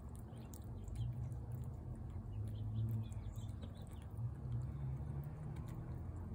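A cat chewing and lapping wet food from a plate, a run of small wet clicks, over a low rumble that swells twice.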